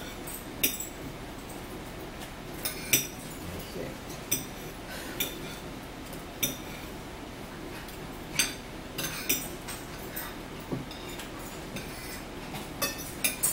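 Forks clinking and scraping against dinner plates, about a dozen sharp clinks at irregular intervals.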